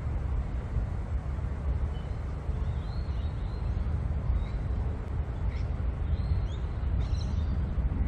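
A steady low rumble with several faint, short, high bird chirps starting about two seconds in.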